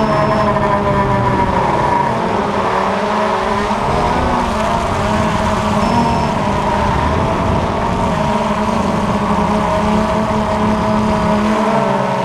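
DJI Phantom FC40 quadcopter's four motors and propellers whining steadily in flight, heard close from the drone's own camera, the pitch wavering slightly up and down as it manoeuvres.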